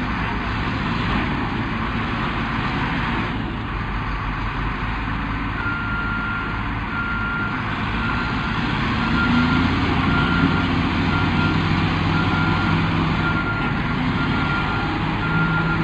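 Crawler bulldozer's diesel engine running under load as it works earth. From about five seconds in, a backup alarm beeps about once a second as the dozer reverses.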